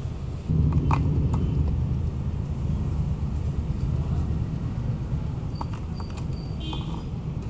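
A few light clicks of metal tongs setting burning charcoal pieces onto a steel pot lid, over a steady low rumble that gets louder about half a second in.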